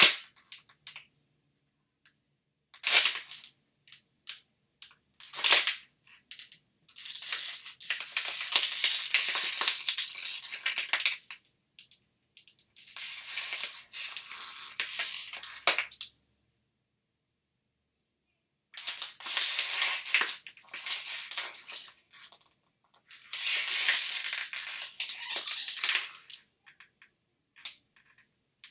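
Neck joints cracking: a few sharp single pops in the first six seconds, then four stretches of a few seconds each of dense crackling and crunching, separated by silences.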